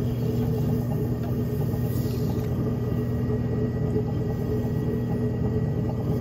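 Potter's wheel spinning at speed with a steady low motor hum and rumble, as wet clay is centred by hand on the wheel head.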